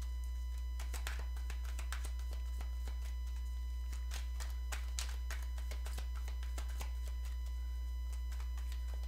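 A steady low hum with faint background music, and scattered light taps and rustles of tarot cards being handled on the table.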